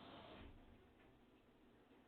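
Faint, even hiss from a Samsung front-load washing machine that drops away about half a second in, leaving near silence with a few faint ticks.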